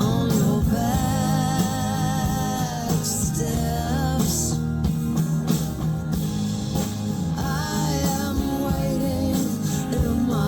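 A song with a singing voice that wavers in pitch over guitar and a steady band backing, played back from a CD through a hi-fi amplifier and speakers.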